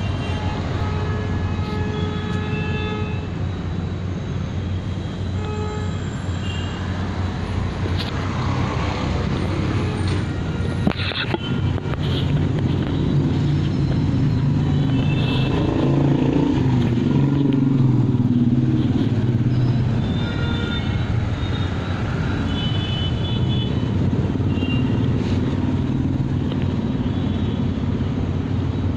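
Street traffic: a steady low rumble of engines that swells for several seconds in the middle, with short horn toots here and there.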